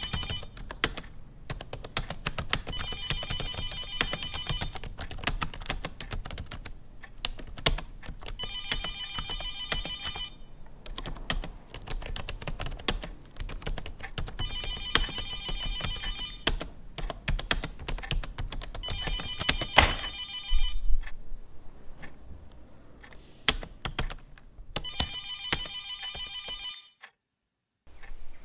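A telephone ringing in trilling bursts of about two seconds, six times at uneven gaps, over fast, steady keyboard typing. The typing thins out about two-thirds of the way through, and the sound cuts out briefly near the end.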